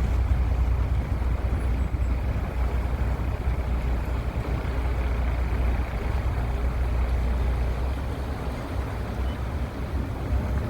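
Steady low rumble with wind buffeting the microphone, as aboard a boat under way.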